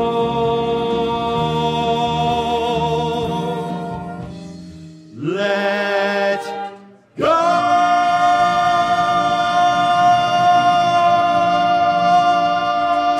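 Vocal ensemble holding the long closing chords of a musical-theatre song. A held chord fades about four seconds in and a short rising phrase follows. After a brief break about seven seconds in, a loud final chord is held steadily.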